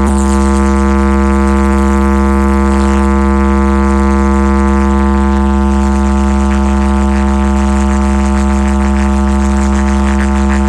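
DJ sound-box speaker stack playing a loud, steady buzzing drone tone with heavy deep bass underneath, unchanging throughout: a speaker check of the sound system.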